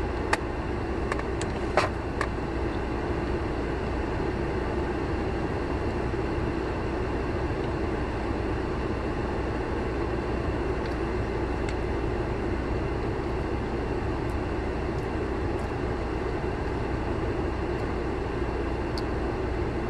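Steady hum of a parked car running, heard inside the cabin, with a couple of small clicks in the first two seconds as a plastic lid is taken off a food cup.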